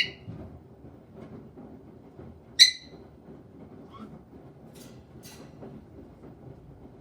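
Caique parrot giving short, shrill calls: one at the start, the loudest about two and a half seconds in, then a fainter call and two quick high chirps, over low rustling.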